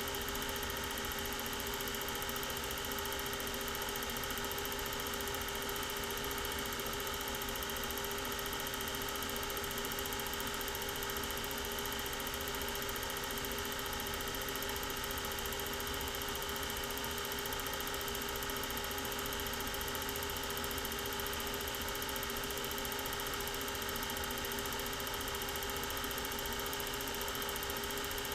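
Steady hum and whir of a running film projector, with a constant hiss.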